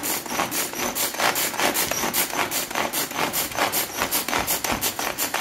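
Pigeon pull-cord vegetable chopper worked in quick repeated pulls, about four a second, its blades spinning in the plastic bowl to mince onion, ginger, garlic and green chillies fine.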